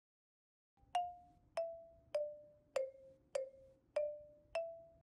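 A short musical jingle of seven struck notes, one about every 0.6 s, each ringing out and fading; the melody steps down in pitch and climbs back up, starting about a second in and cutting off abruptly.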